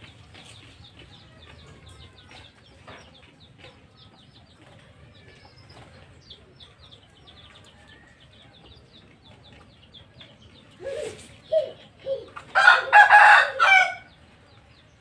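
A rooster crows once near the end, a loud call of about a second and a half, after a few short clucks. Faint high chirps sound throughout.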